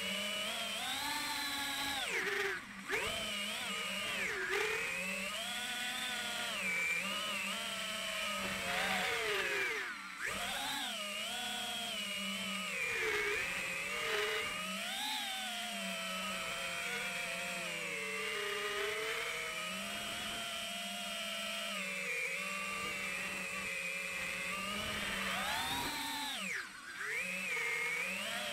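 An FPV quadcopter's iFlight 2207 2450kv brushless motors whining, recorded on board. The pitch rises and falls constantly with the throttle, and dips briefly a few seconds in and again near the end, over a steady low hum.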